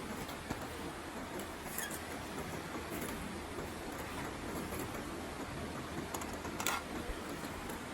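Wood campfire crackling, with a few sharp pops over a steady background hiss, the loudest pop near the end.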